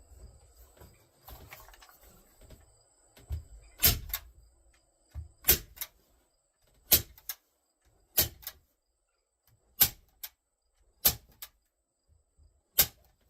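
A staple gun driving staples through carpet into a wooden rail: seven sharp snaps about one and a half seconds apart, beginning about four seconds in, with some faint handling before them.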